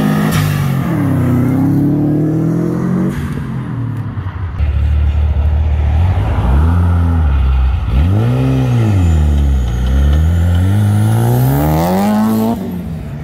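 A Subaru Impreza's flat-four pulling away and climbing in pitch, then a Mitsubishi Lancer Evolution's turbocharged four-cylinder revving up and down several times before accelerating hard past. It cuts off sharply near the end.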